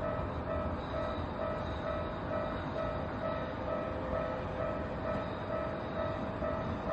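Japanese level-crossing warning bell ringing in even strokes, about two a second, over the steady rumble of a Keikyu Line train passing through the crossing.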